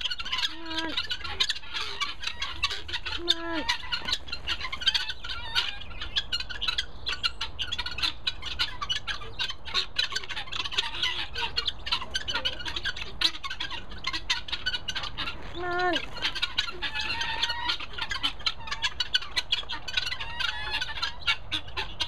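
A flock of helmeted guineafowl calling while feeding: a dense, rapid, harsh clicking chatter, broken by a few lower, bending calls about a second in, at about three seconds and near sixteen seconds.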